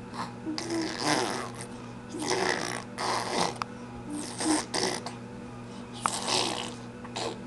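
Baby blowing raspberries, a series of about six spluttering bursts, each under a second: a newly learned sound.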